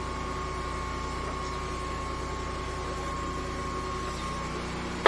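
High-pressure sewer jetting machine running steadily while clearing a blocked drain line: a low engine drone with a steady high whine over it. A single sharp knock near the end.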